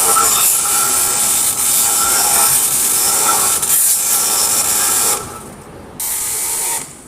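Power tool running on a block of wood, going steadily for about five seconds, then a second short burst near the end.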